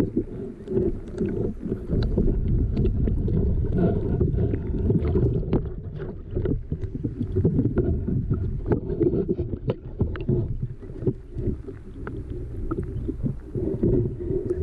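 Muffled water sloshing and splashing as a Khaki Campbell duckling and a Toulouse gosling paddle and dabble in a small plastic pool. It is heard through a waterproof camera housing under the water, so the sound is dull and low, with many small knocks and splashes.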